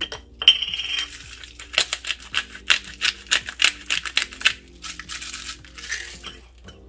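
A hand-held spice shaker shaken in quick strokes over fish fillets, its granules rattling inside at about four shakes a second, with a softer rattling shake again near the end; background music runs underneath.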